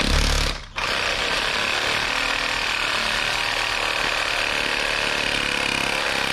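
Cordless reciprocating saw with a long metal-cutting blade sawing through thick-walled class 7 PVC pipe. A short burst at the start and a brief stop just under a second in, then steady cutting.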